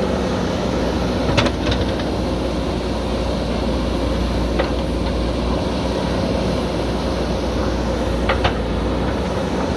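Heavy diesel machinery engine running steadily under work, with a few short sharp clanks about a second and a half in, near the middle and near the end.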